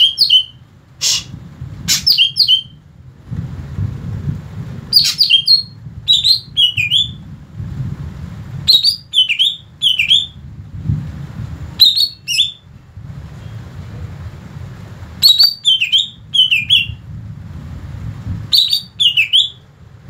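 Caged cucak ijo (green leafbird) singing: loud phrases of quick, sweeping whistled notes, one every one to three seconds, over a steady low rumble.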